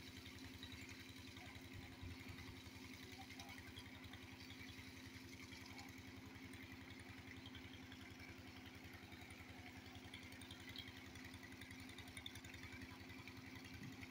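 Faint, steady running of a small engine: an even low chugging with a constant hum that does not change.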